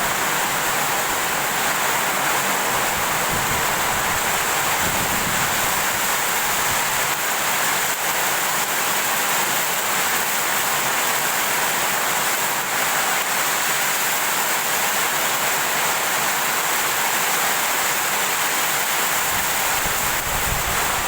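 Heavy rain pouring down with strong wind, a steady loud hiss, with occasional low wind gusts buffeting the microphone.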